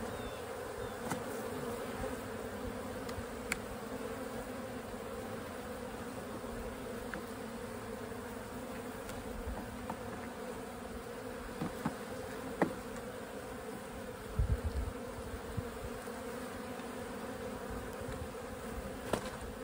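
A colony of honey bees buzzing around an open hive and its pulled frames, a steady droning hum. A few light clicks and a low knock about two-thirds of the way through come from handling the hive.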